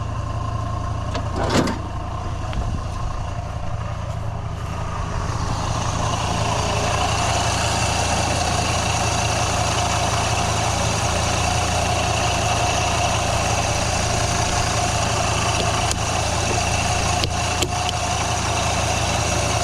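An engine running steadily, its hum joined by a louder, fuller running sound that builds about five seconds in and then holds, with a single click early on.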